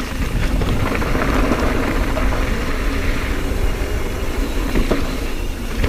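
Wind rushing over the camera microphone and mountain-bike tyres rumbling over dirt singletrack at speed, with a few sharp knocks as the bike hits bumps.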